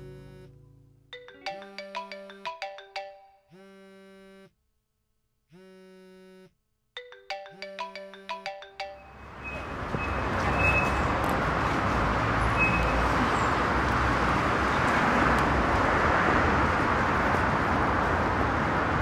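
A phone ringtone: a quick run of notes, two longer steady tones with a pause between them, then the run of notes again. About nine seconds in it gives way to steady city street traffic noise.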